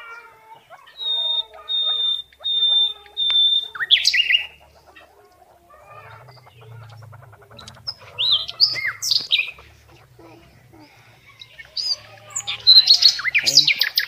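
Cage birds chirping: four short high whistles in a row, then several loud bursts of quick high chirps and gliding notes.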